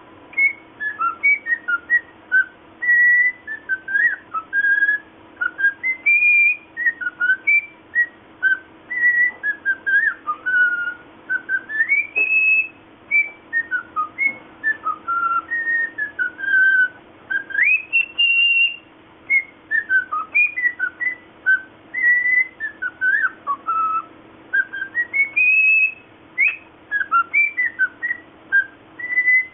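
Cockatiel whistling: a long run of short, pure whistled notes that rise and fall in pitch, with a few longer rising whistles, over a faint steady hum.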